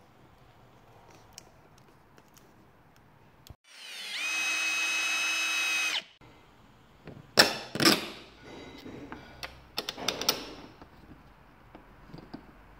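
Cordless drill driving a screw into a sheet-metal battery box lid: the motor whines up in pitch, runs steadily for about two seconds and stops. Then come several sharp metallic clicks and knocks, the loudest sounds here.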